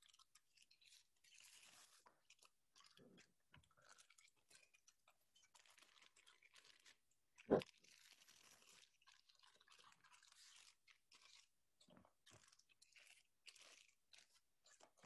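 Faint rustling and crinkling of a plastic zip-top bag being handled, with one brief thump about seven and a half seconds in.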